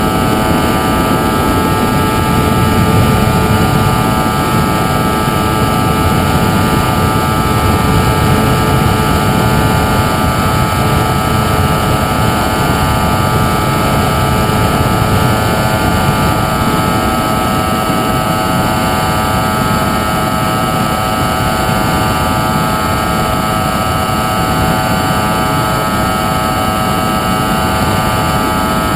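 FPV model airplane's onboard audio: a steady rushing noise under a constant hum of several fixed tones, unchanging throughout.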